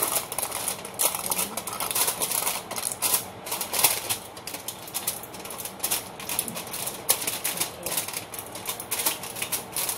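Thick aluminium foil crinkling and crackling in quick, irregular rustles as hands press and crimp it down over a pan.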